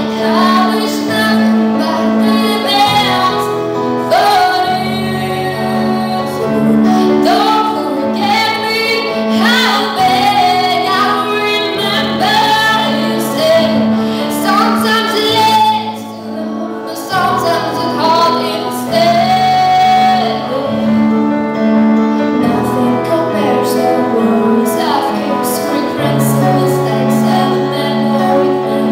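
A young woman singing into a handheld microphone, amplified, over steady instrumental accompaniment of sustained chords and bass.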